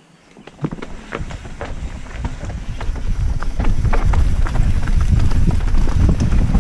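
Mountain bike rolling down a rough dirt trail, the frame and drivetrain rattling with sharp clicks and knocks. Wind buffets the helmet-mounted microphone, and the rumble builds from about half a second in as the bike picks up speed, then holds loud.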